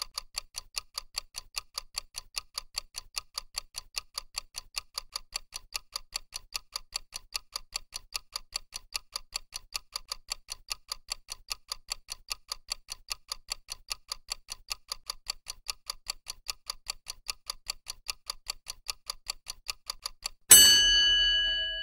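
Countdown timer's clock-tick sound effect: fast, even ticking. About twenty seconds in, as the count reaches zero, the ticking stops and a loud chime rings out and fades.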